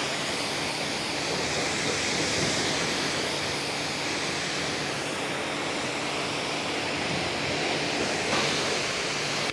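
Electric high-pressure washer running, its motor humming steadily under the hiss of the water jet spraying; it stops suddenly at the end.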